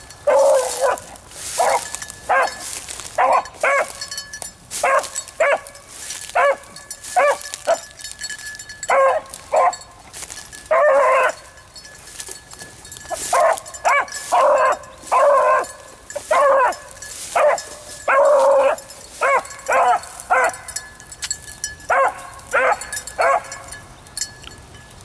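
A single beagle baying while running a rabbit's track: short, repeated barks, one or two a second, with a few drawn out into longer bawls.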